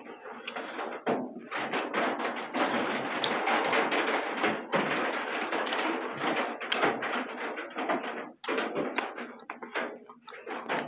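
Close-up eating sounds of people chewing beef and rice and smacking their lips: a dense run of short clicks and smacks, dropping off briefly about eight seconds in.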